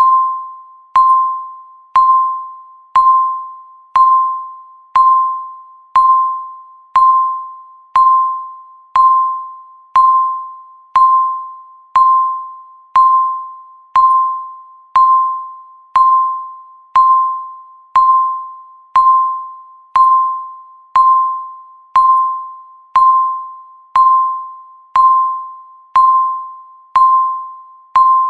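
Countdown timer beeps: a single tone struck once every second, each sharp at the onset and fading away before the next.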